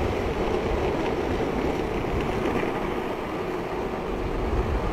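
Longboard wheels rolling fast on asphalt during a downhill run, with wind rushing over the microphone: a steady rushing noise over a low rumble.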